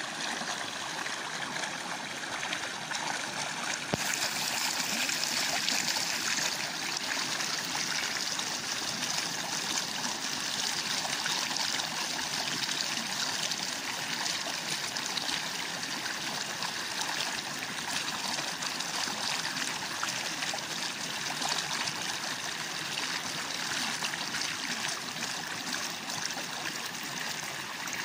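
Small waterfall splashing and running steadily, an even rush of water with a brighter hiss. It grows a little louder about four seconds in, then settles.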